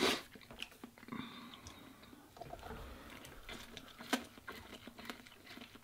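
A man eating instant ramen noodles with chopsticks: quiet chewing, slurping and small mouth clicks. There is a brief louder noise at the very start and a sharp one about four seconds in.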